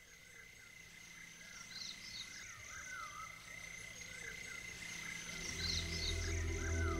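Faint outdoor nature ambience: repeated short chirping calls over a steady high hum. Low ambient music fades in about five seconds in.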